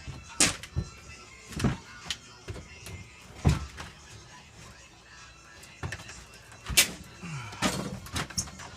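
About five separate sharp knocks and clunks from work on a plywood security door, the loudest two in the middle and near the end, with music playing underneath.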